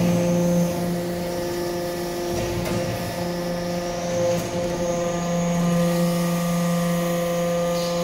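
Hydraulic briquetting press for copper flakes and granules running: steady hum of its hydraulic pump and motor, with a couple of faint clicks midway.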